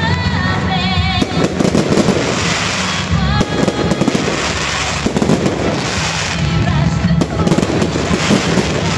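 Fireworks display: a dense, continuous run of bangs and crackling from aerial shells and comets bursting, over loudspeaker music that the explosions largely drown out.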